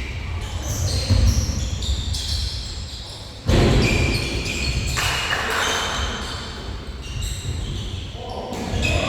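Basketball game play echoing in a large gym: a ball bouncing with low thuds and many short, high squeaks typical of sneakers on a hardwood court. A sudden loud hit comes about three and a half seconds in.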